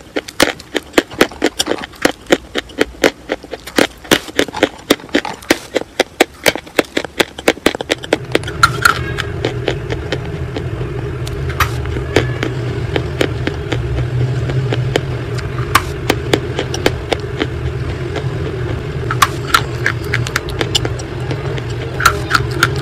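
Close-up crunching of school chalk being bitten and chewed: rapid crisp crunches, about three or four a second, for the first several seconds, then sparser single crunches over a steady low rumble.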